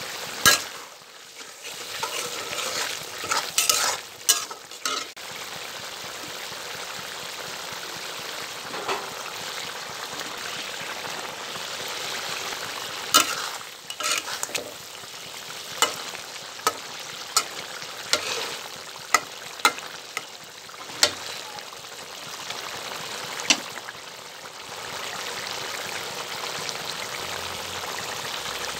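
Fish curry bubbling and sizzling in a wok, a steady hiss. It is broken by sharp clicks and knocks: several in the first few seconds, then a run of about one a second through the middle.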